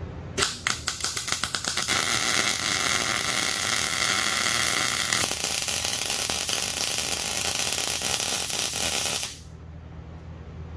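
MIG welder running one long continuous bead on steel: a sputtering, stuttering start for about a second and a half, then a steady frying hiss that cuts off suddenly about nine seconds in.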